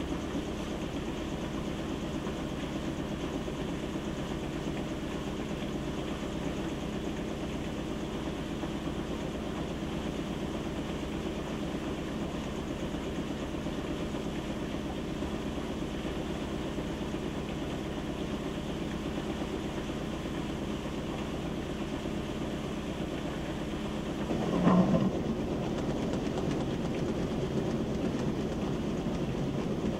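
Whirlpool WTW7300DW top-load washer spinning its basket during a rinse-and-spin cycle: a steady mechanical hum with several steady tones. About 25 seconds in there is a brief louder surge, and after it the running sound is a little louder and rougher.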